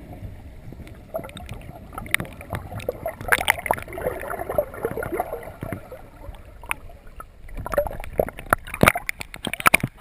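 Muffled water gurgling and sloshing, heard through an underwater camera housing, with many irregular clicks and knocks that come thickest about three seconds in and again near the end.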